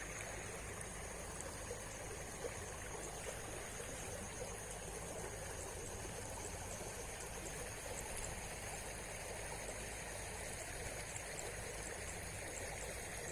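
River water flowing steadily: an even rushing of the current, with no change in level.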